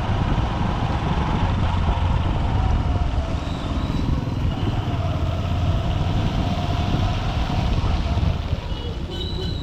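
A Honda SP125's single-cylinder engine running under way amid dense city traffic noise, as a steady low rumble. A short high-pitched tone sounds near the end.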